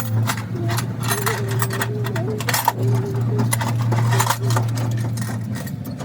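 A machine motor running with a steady low hum, with irregular clicks and metallic knocks over it.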